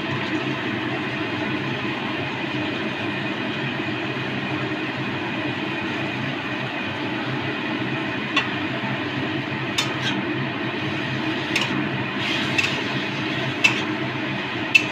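A steady rushing noise from the stove as grated carrot and cashews fry in ghee in a steel kadai. From about halfway through, a steel spatula clinks and scrapes against the kadai several times as the mixture is stirred.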